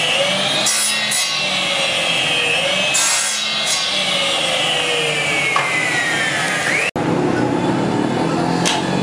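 An electric power tool works a small piece of wood with a loud whining motor. Its pitch sags each time the wood is pressed in and rises again as it is eased off, several times over. Just before the end the sound cuts off abruptly and gives way to a different, steadier background noise.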